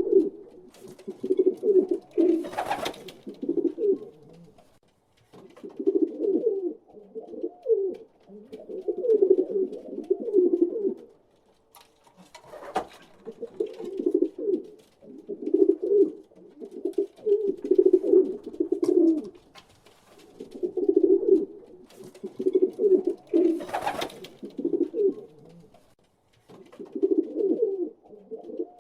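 Pigeons cooing: runs of low, throaty coos in phrases a few seconds long with short pauses between, and a brief sharp noise three times.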